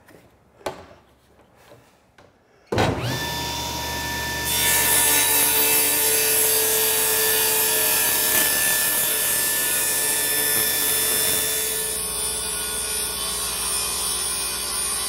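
Table saw started about three seconds in, its motor whine rising to speed, then ripping a thin 1/16-inch strip off a white oak board, the blade cutting steadily through the wood for the rest of the time. A few light knocks of the stock being handled come before it.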